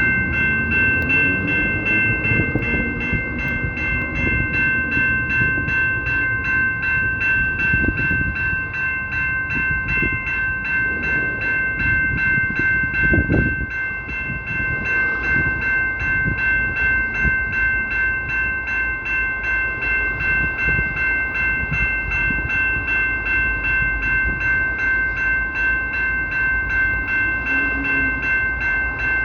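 CPKC locomotive horn held in one long steady chord that pulses quickly and evenly, over the rumble of the train.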